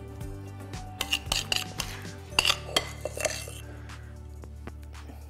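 Spoon clinking and scraping against a glass mixing bowl and ceramic baking dish while a thick, cheesy casserole mixture is scooped out and dropped in dollops, with several sharp clinks between about one and three and a half seconds in.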